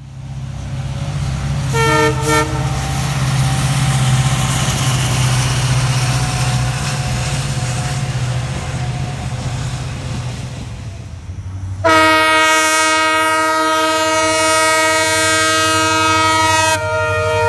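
Indian Railways train running with a steady low rumble, its locomotive horn giving two short toots about two seconds in, then one long loud blast from about twelve seconds in that holds to the end.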